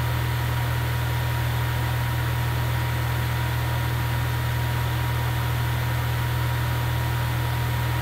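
A steady low hum with an even hiss and a few faint steady whining tones, unchanging throughout, like electrical hum in the recording.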